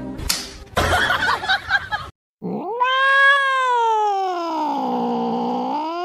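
Domestic cat yowling in a face-off with another cat: one long drawn-out call that starts about two and a half seconds in, rises quickly, then slides slowly down in pitch.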